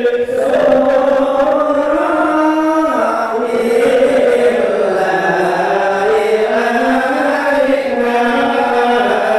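A group of men chanting an Arabic Maulid praise song (sholawat) together in unison, on long held notes that slide slowly from pitch to pitch.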